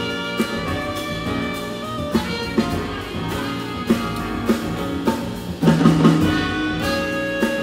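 Live jazz quintet playing: trumpet and clarinet carrying the melody over piano, plucked double bass and drum kit with cymbals. A cluster of louder drum hits comes a little before six seconds in.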